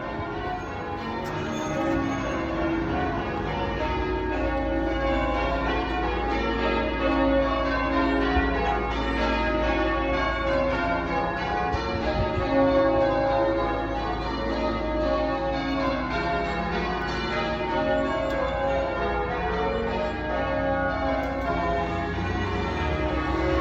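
Church tower bells ringing, many bells struck in quick succession with their tones overlapping and ringing on, over a steady low rumble.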